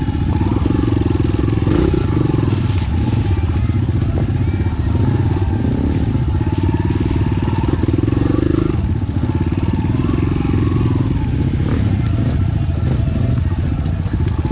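Enduro dirt-bike engine running under way, its revs rising and falling.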